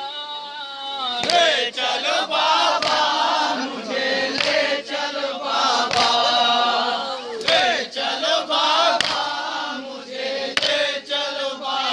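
A group of men chanting a nauha, an Urdu mourning lament, together, with sharp chest-beating strikes of matam about every second and a half.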